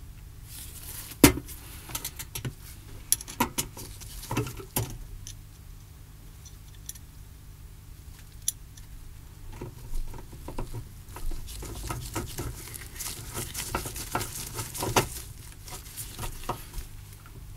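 Handling noise: a string of small clicks, taps and knocks with some rustling, from small parts and tools being handled. The sharpest click comes about a second in, and the taps grow denser in the second half.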